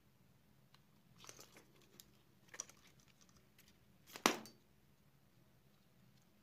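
Faint handling noises as an LCD panel and its small backlight inverter board are moved about by hand: light rustles and small clicks, with one sharper click a little past the middle.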